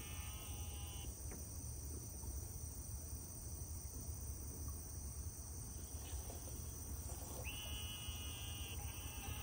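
Insects chirring steadily over a low rumble. A higher, pitched buzzing fades out about a second in and comes back about seven and a half seconds in.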